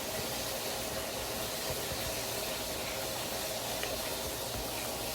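Chicken frying in hot oil, with a steady sizzling hiss.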